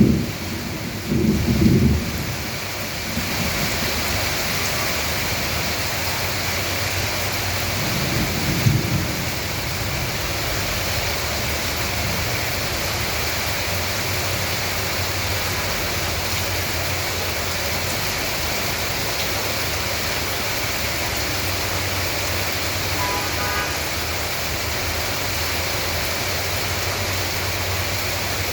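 Steady heavy rain falling. Two brief low rumbles stand out, one about a second in and one around eight to nine seconds in.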